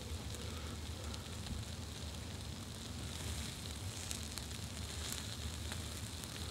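Burgers sizzling on a small grill over campfire embers, with a steady hiss and scattered faint crackles from the fire.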